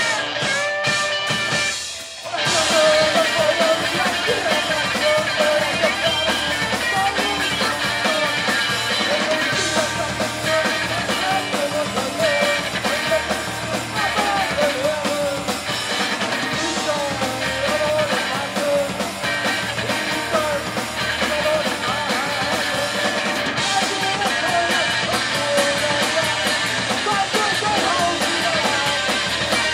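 Live punk band playing: a lone electric guitar rings for about two seconds, then the full band of electric guitars, bass guitar and drums comes in loudly with a singer.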